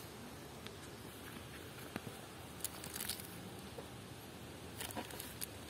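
Faint cooking and handling noises: a few scattered small clicks and rustles over a low steady hiss.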